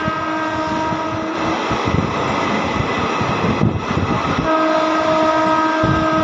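Diesel or electric train horn sounding in two long blasts, the first ending about a second and a half in, the second starting about four and a half seconds in. Under it, the rumble and irregular clatter of coach wheels running over rail joints, heard from inside the moving coach.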